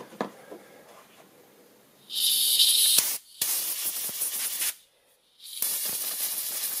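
Aerosol can with a straw nozzle spraying into the end of an aluminium DRO glass-scale rail in three hissing blasts, starting about two seconds in, blowing out filings and debris from the cut.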